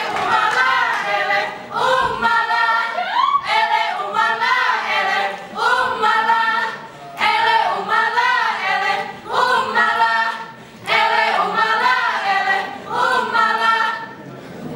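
Dancers in an Acehnese Saman dance singing together without instruments, in short chanted phrases of bending pitch with brief breaks between them.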